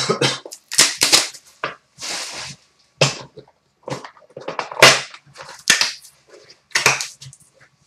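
Plastic shrink wrap being cut and torn off a sealed trading card box: a run of irregular sharp crinkles and snaps, with a short ripping hiss about two seconds in.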